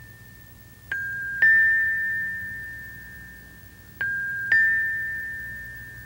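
A two-note chime figure: a struck metallic tone followed half a second later by a slightly higher, louder one, both ringing out slowly. The pair sounds twice, about three seconds apart, over a faint low hum.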